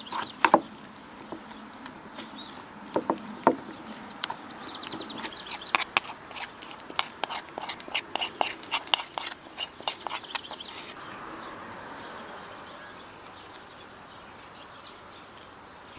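Wooden spoon working thick yogurt with grated cucumber and dill in a bowl: a few hard knocks of the spoon against the bowl, then, from about four seconds in, a quicker run of clicks and wet squelches as the mixture is scraped out onto a metal tray. It fades to a soft hiss for the last few seconds.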